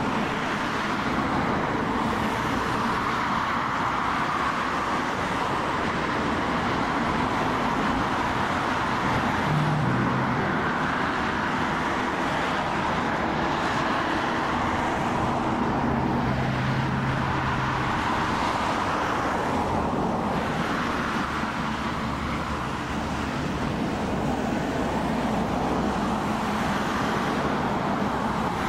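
Jet engines of airliners taxiing at idle power, a Boeing 737 and an Airbus A320, making a steady rushing noise.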